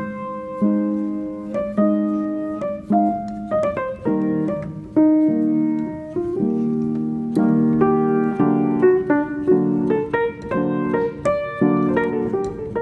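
Background piano music: a slow melody of single notes and chords, each struck sharply and then fading.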